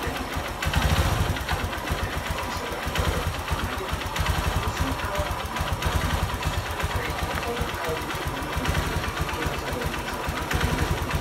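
Honda Verza 150's air-cooled single-cylinder engine idling fairly smoothly on a freshly fitted piston, with a fast light tick-tick-tick that the mechanic puts down to the fuel injector, a common and harmless noise on this model.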